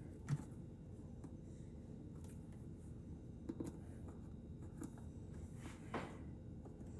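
A few faint knocks and clicks from objects being handled: a dull thump just after the start, a pair of small knocks in the middle and a sharper click near the end, over a low steady hum.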